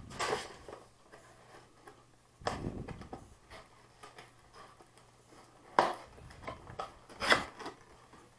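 Hands handling and opening a cardboard retail box: scattered rubbing and scraping of cardboard, with sharp knocks about two-thirds of the way in and again near the end.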